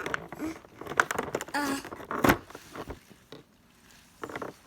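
Handling noises from a cardboard Play-Doh advent calendar being opened and its small plastic piece pulled out: scattered taps, rustles and clicks, with one sharp knock a little past two seconds in. A short voice sound comes just before the knock.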